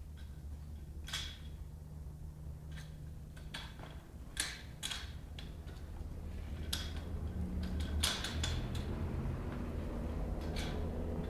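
A child's small bicycle clicking and creaking irregularly as it is pedalled slowly over concrete, with a low rolling rumble that grows louder in the second half.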